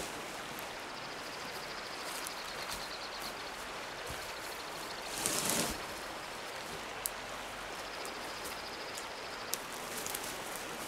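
Steady rushing of running river water, with a brief louder rustle about five seconds in and a couple of sharp clicks later on.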